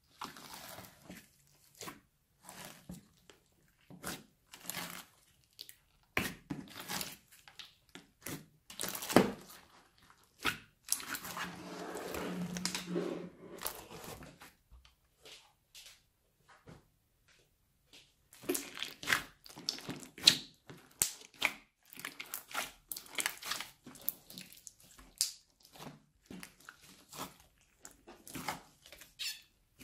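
Hands squishing, pressing and stretching a big mass of mixed old slime full of plastic beads: irregular sticky pops, crackles and crunches. A denser run of squelching comes about a third of the way in, then a few seconds of near quiet before the popping picks up again.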